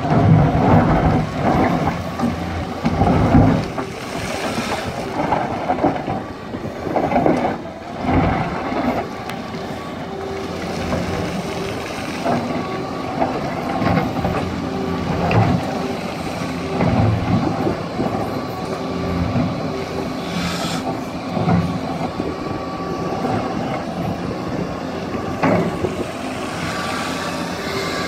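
Liebherr R 966 crawler excavator working: its diesel engine runs steadily under load while the bucket digs and scrapes through rocky soil. Stones and the steel bucket knock now and then, with heavier surges of digging in the first several seconds.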